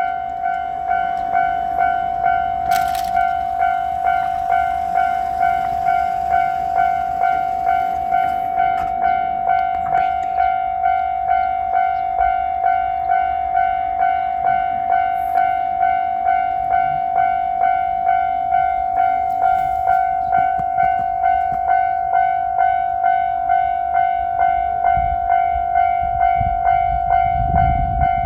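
Japanese level-crossing warning bell ringing: one steady bell-like tone struck about one and a half times a second, the signal that a train is approaching. A low rumble from the approaching freight train builds near the end.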